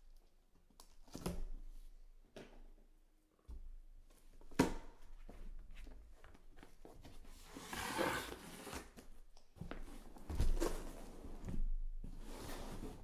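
Cardboard shipping case being opened and handled: flaps folded back and the case slid and lifted, with rustling and scraping of cardboard and a few knocks, the sharpest about four and a half seconds in.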